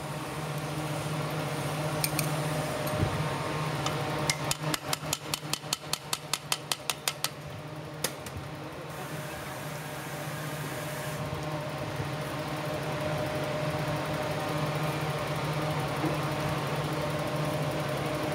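Steady mechanical hum, with a quick, even run of light metal clicks, about five a second, lasting some three seconds near the middle, as metal parts are fitted into the housing of a cycloidal pinwheel reducer. A few single clicks come before and after.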